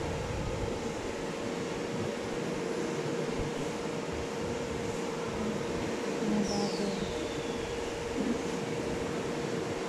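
Steady factory-floor background noise of machinery and ventilation running, with a constant mid-pitched hum. A short falling squeal sounds about six and a half seconds in.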